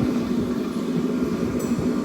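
A forge running, a steady rushing hum with no change in pitch or level.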